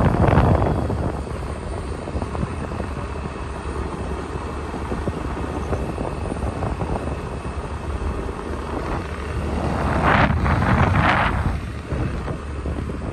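Steady wind buffeting and road rumble from riding in a moving vehicle, with two brief louder whooshes about ten seconds in.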